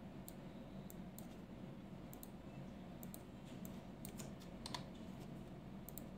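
Faint, irregular clicks of a computer mouse and keyboard, about a dozen, with a cluster near the middle, over a low steady hum.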